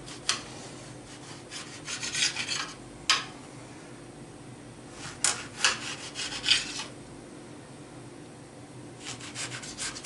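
Kitchen utensil scraping and rubbing in several short bursts of scratchy strokes, with one sharp knock about three seconds in.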